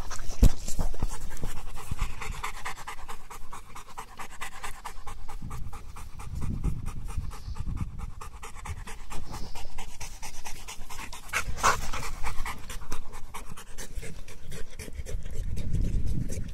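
Yellow Labrador retriever panting steadily in quick breaths, with a couple of short sharp clicks, one just after the start and one about two-thirds of the way through.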